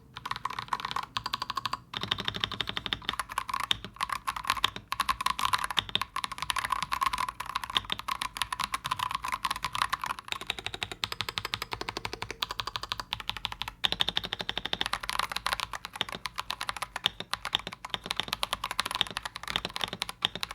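Fast typing on an Akko 5075B Plus mechanical keyboard fitted with Akko CS Wine White tactile switches, which are not pre-lubed, and PBT keycaps: a dense run of keystroke clacks. Brief pauses come about two seconds in and near fourteen seconds.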